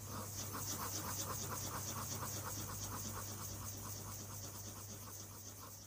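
Rhythmic scratching, several short strokes a second, over a low steady hum, slowly fading toward the end.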